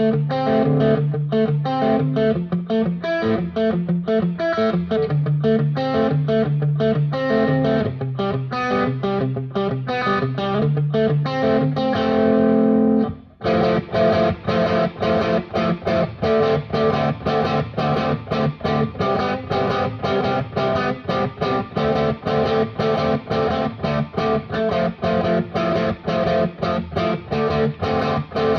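Electric guitar played through a Becos FX CompIQ Mini Pro compressor pedal: a melodic part with held notes ends on a sustained chord that cuts off sharply about halfway through, then gives way to fast, evenly picked rhythm playing.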